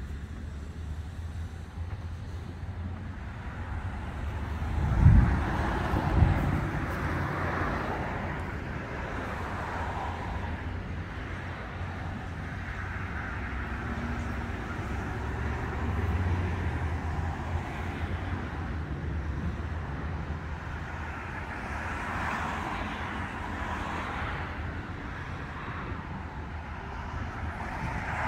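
Cars passing on the road, their tyre noise swelling and fading several times over a steady low rumble. Two sharp low thumps come about five and six seconds in.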